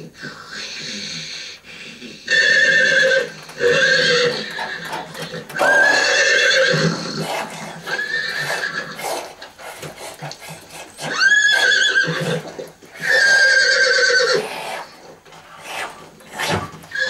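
A horse whinnying again and again: about six loud, wavering neighs a second or two apart, some sweeping up in pitch as they begin.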